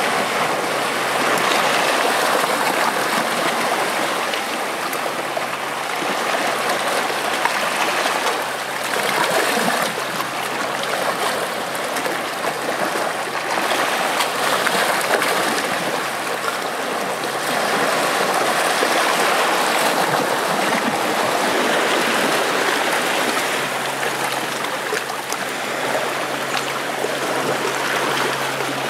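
Shallow seawater washing and trickling over and between shore rocks: a steady rush of moving water that rises and falls a little.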